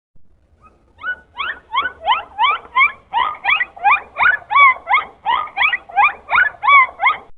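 Dolphin calling in a rapid series of short rising whistles with overtones, about three a second, starting about a second in; a few of the calls rise and then dip.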